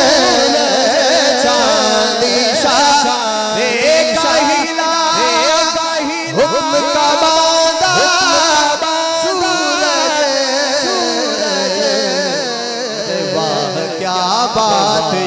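Male voices singing a naat, an Urdu devotional song, through a microphone and hall loudspeakers. Several voices overlap, holding long, wavering notes.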